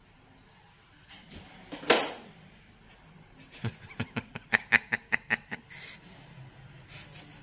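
A person laughing in a quick run of short bursts, about five a second, after a single sharp burst of sound about two seconds in.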